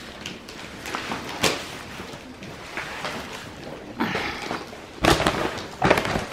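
Wrapped gift boxes and paper being handled: rustling, with a sharp knock about a second and a half in and two louder thumps near the end.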